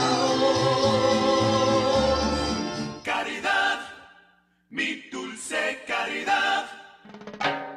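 Karaoke singing over backing music, with long held notes that fade out about three to four seconds in. After a brief silence, voices come in again.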